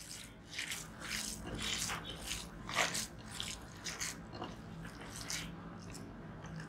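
A hand squeezing and kneading ground raw chicken mince mixed with chopped onion and green chillies in a clay bowl: irregular wet squelches, about two or three a second.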